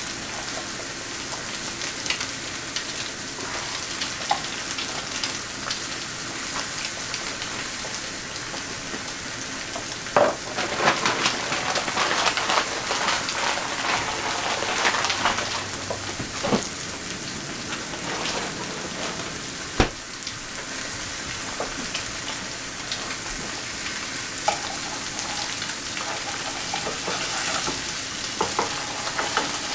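Eggs frying in hot oil in a skillet: a steady sizzle with fine popping crackle that grows busier for a few seconds about a third of the way in. A single sharp knock sounds about two-thirds of the way through.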